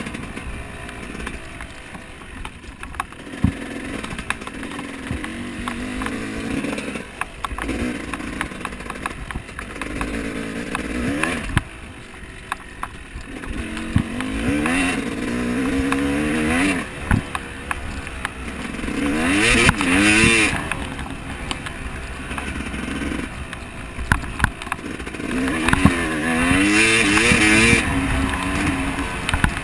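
Off-road motorcycle engine revving up and down over and over as the throttle is worked, with scattered sharp knocks and clatter.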